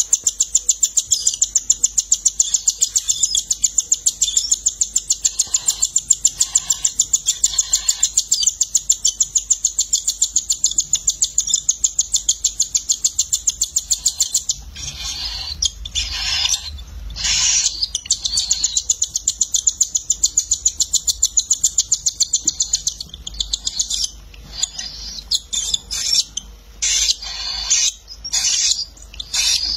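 Cockatiel chicks giving rapid, high-pitched begging calls while a parent feeds them beak to beak. A fast, even pulsing breaks about halfway into uneven bursts with short pauses.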